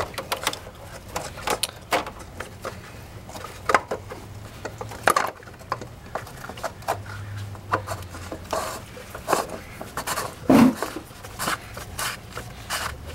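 Fuel filter housing lid on a 5.9 Cummins diesel being screwed down by a gloved hand: irregular scraping, rubbing and clicking as the lid is threaded on and snugged.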